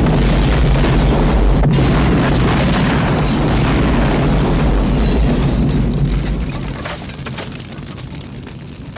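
Explosion sound effect of a house being blown apart: a loud, dense rumble that holds for about six seconds, then fades away with a few scattered crackles.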